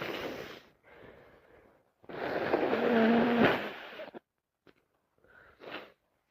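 A person blowing their nose hard into a tissue, one long blast of about two seconds with a honking tone in the middle. It comes after a couple of shorter breaths, and a short sniff follows near the end.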